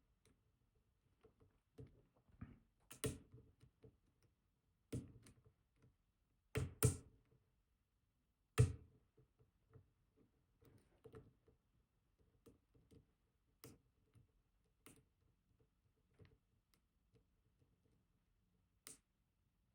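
Scattered faint clicks and taps of a lock pick working the pins inside an ASSA Twin Combi high-security lock under light turning tension, a few sharper clicks in the first half and fainter ones later.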